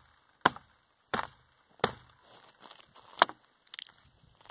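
Hatchet chopping into the trunk of a small standing dead tree: four sharp strikes roughly two-thirds of a second apart, then a pause and a couple of lighter knocks near the end.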